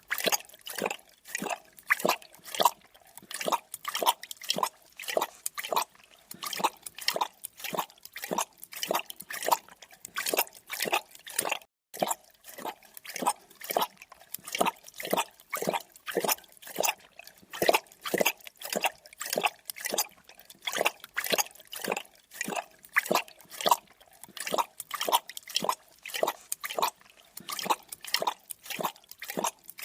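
Creature drinking sound effect: wet lapping of liquid in a steady rhythm, about three laps a second, cutting out for a moment near the middle.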